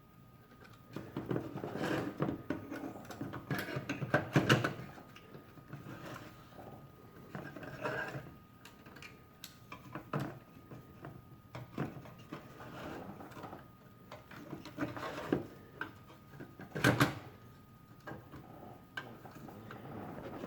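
Parts of a Raggedy Ann & Andy toy bank being handled and fitted back together: irregular knocks, clicks and rattles, the sharpest about four seconds in and again near seventeen seconds.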